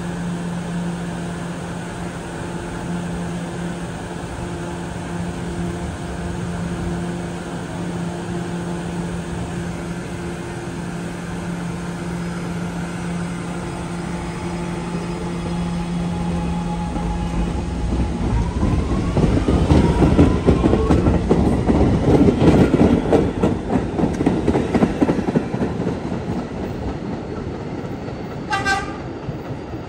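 R211S subway train standing at a platform with a steady electrical hum. About 18 s in, rumbling and rail clacking swell as the train moves off, with the motor whine rising in pitch. Near the end comes a short horn toot.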